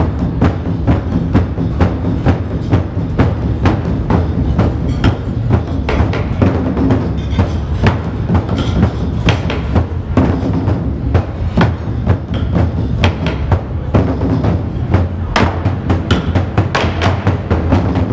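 Ensemble of large Chinese barrel drums beaten with wooden sticks, a dense, fast and steady run of strikes with a deep booming body.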